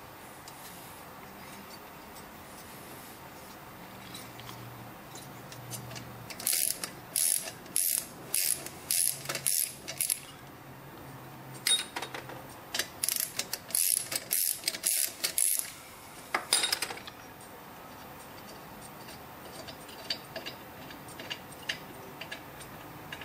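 Hand ratchet wrench clicking in short strokes: two runs of sharp clicking bursts, roughly two a second, each run lasting a few seconds.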